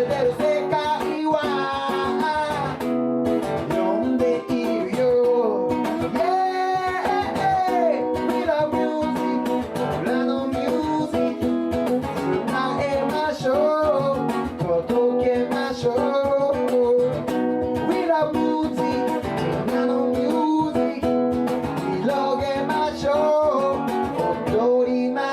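Live song: a male singer-songwriter singing to his own guitar accompaniment.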